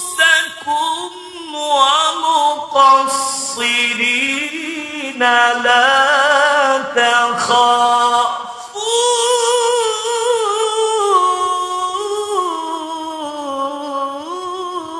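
A single voice chanting Quranic recitation in Arabic, in long melodic phrases with ornamented held notes whose pitch wavers and slides. There is a short break between phrases about eight and a half seconds in.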